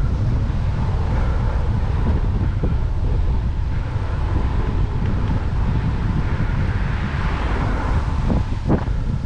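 Strong wind buffeting the microphone of a cyclist's camera, a steady heavy rumble. A vehicle swells in the middle of it about two-thirds of the way through, and there are a couple of short knocks near the end.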